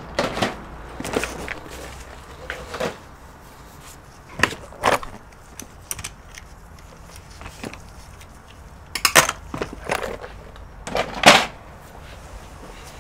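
Scattered knocks and clicks of small hand tools, screwdrivers among them, being picked up and handled on a workbench, with two louder clusters of clatter near the end.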